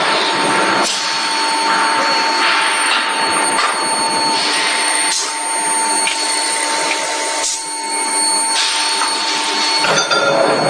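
Forging-line machinery in the workshop: a loud, steady hiss with a continuous hum tone, broken by a few sharp knocks; the hum stops and the noise changes near the end.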